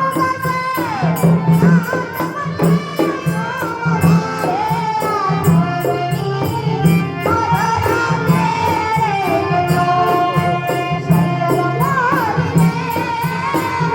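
A girl singing a folk-style Indian song in a strong, full voice, her melody bending and sliding, over a rhythmic accompaniment with a steady beat of drum and high percussive ticks.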